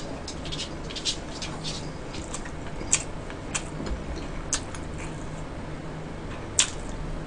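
Close-miked chewing and wet mouth smacks of someone eating stir-fried sundae and tripe with glass noodles, with a few sharper clicks now and then, over a low steady hum.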